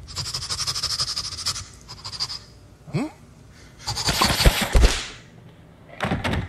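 Comedy sound effects: a crackling hiss, a quick rising whoop, then the loudest part, a burst of noise with low thuds as smoke puffs from a wand, and a shorter burst near the end.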